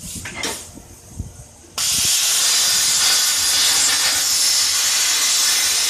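A CNC plasma torch fires about two seconds in and cuts a metal plate: a sudden, loud, steady hiss that holds unbroken.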